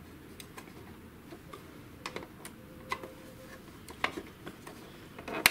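Scattered light clicks and taps of a thin rod and fingers on the hard plastic housing of an HP Smart Tank 513 printer as the snap latches of its power-supply cover are pressed, with a sharper click just before the end.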